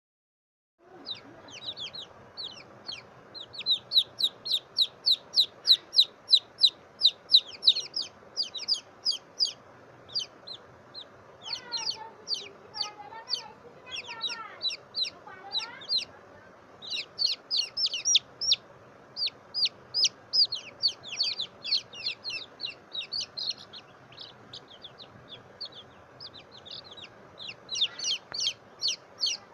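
A baby chick peeping loudly and insistently: a long run of short, high-pitched cheeps at about two to three a second, typical of a chick calling while handled. In the middle the cheeps give way for a few seconds to softer, lower, falling trills before the peeping resumes.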